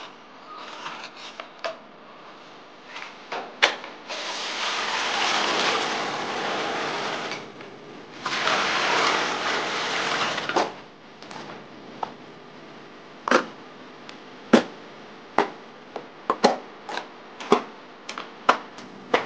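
Fresh bamboo shoots peeled by hand: the sheaths snap and crack as they are broken off, in a run of sharp separate cracks. In the middle, water pours into a wok in two long rushes.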